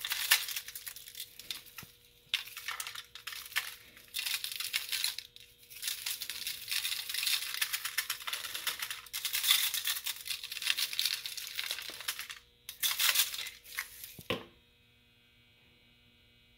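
A lemon pepper shaker shaken over fish in repeated bursts, the seasoning rattling in the shaker and falling onto aluminium foil. Near the end there is a single knock, then only a faint steady hum.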